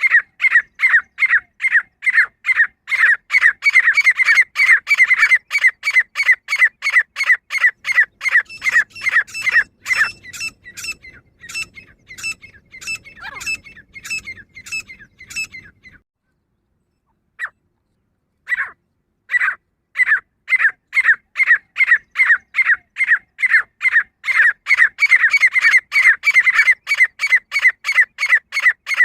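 Female grey francolin calling: a long, fast run of short, sharp notes, about three or four a second. The notes grow fainter about ten seconds in, almost stop for a few seconds past the middle, then start up again at full strength.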